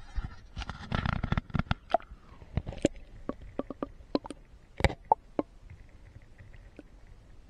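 Muffled clicks and knocks from a camera being handled and dipped into shallow creek water, thick at first and thinning out, then only a faint steady hiss after about five seconds.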